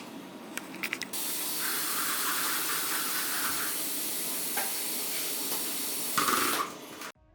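A few clicks, then a steady loud hiss that starts abruptly about a second in and cuts off shortly before the end.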